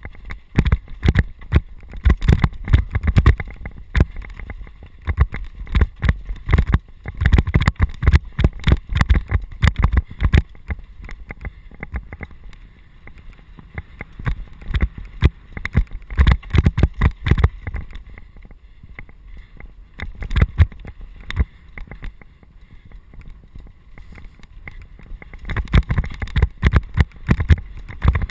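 A mountain bike rattling and clattering as it rides down a rough, rocky dirt trail: dense runs of knocks and jolts from the tyres, frame and chain over stones, easing off briefly a couple of times before picking up again.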